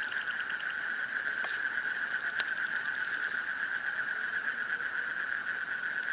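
Steady, high-pitched chirring of night insects, with the campfire crackling and popping now and then, one sharper pop about two and a half seconds in.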